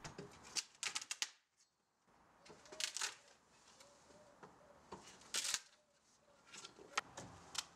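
Wooden pallet boards being levered apart with a demolition bar: a few sharp cracks and creaks of splitting wood and pulling nails, in short groups spaced a couple of seconds apart, with faint squeaks between them.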